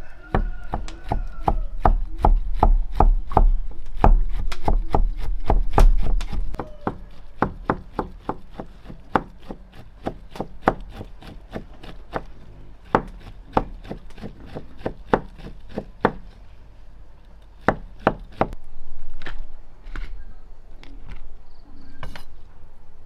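A heavy cleaver chopping cooked pork into thin strips on a thick wooden chopping block. The knocks come quick and even, about three a second, then thin out after about 16 seconds to a few last chops.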